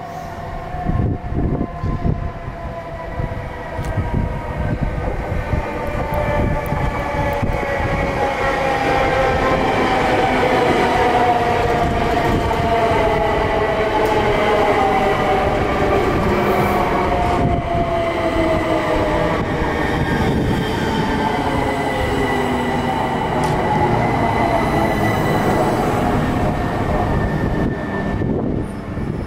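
Bombardier Electrostar electric multiple unit passing close by: its traction motors whine in several tones that fall steadily in pitch as the train slows, over the rumble and clatter of wheels on the rails. The noise swells about a quarter of the way in and eases off near the end.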